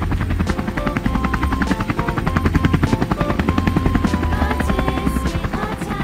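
Helicopter rotor sound effect: a rapid, steady chop of the blades, playing over light background music with a simple stepping melody.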